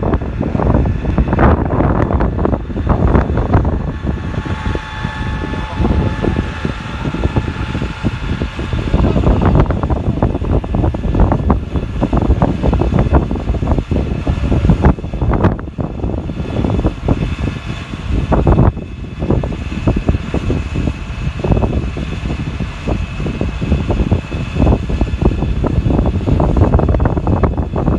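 Strong wind buffeting the phone microphone in gusts, a loud rumbling noise that swells and drops throughout, with a faint steady whine above it.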